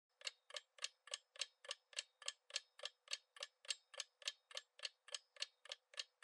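Clock-like ticking sound effect of a quiz countdown timer: sharp, even ticks at about three and a half a second, starting a quarter second in.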